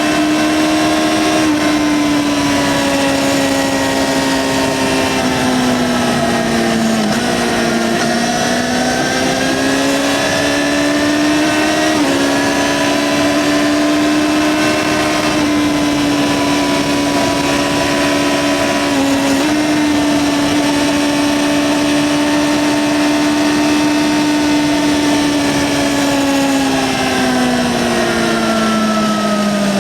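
Yamaha XJ6-N's 600 cc inline-four running at steady high revs through its stock exhaust, its pitch sagging and recovering about a quarter of the way in, with a couple of brief dips later. Near the end the revs fall away steadily.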